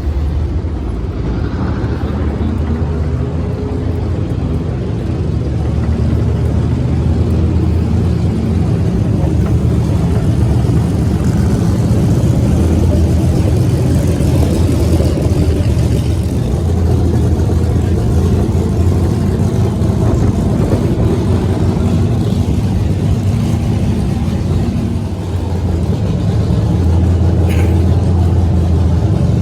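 Nitro-burning drag racing engine running loudly at a steady idle, with a deep, even low throb that dips briefly once near the end.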